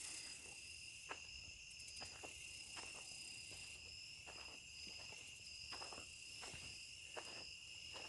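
Faint, steady chorus of insects singing a continuous high trill, with soft ticks roughly once a second.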